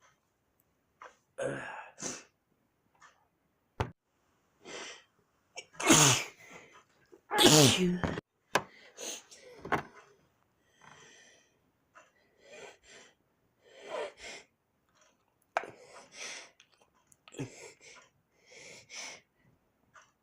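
A person's sneezing fit: short gasping in-breaths and sniffs as sneezes build, with two loud sneezes about six and seven and a half seconds in.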